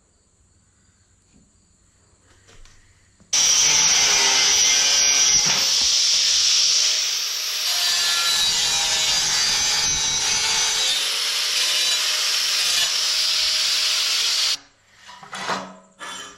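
A power tool working on steel plate, running steadily for about eleven seconds; it cuts in sharply after a few seconds of quiet and stops just as sharply.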